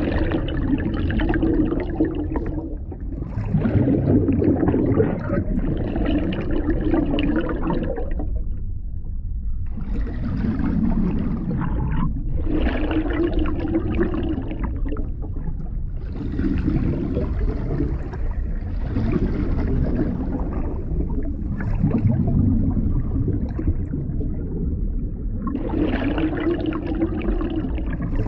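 Muffled underwater water noise with bubbling and gurgling. It swells and falls back in surges every few seconds.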